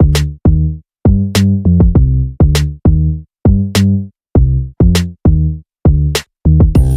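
Electronic background music: a drum-machine beat of short, deep bass notes and sharp hits, each cutting off abruptly.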